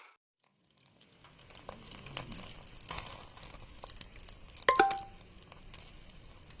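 Light handling clatter: scattered small clicks and rustles, with one sharp clink that rings briefly about three-quarters of the way through.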